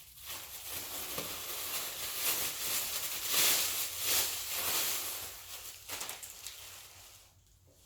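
Rustling of clothes being handled, loudest in the middle and dying away near the end.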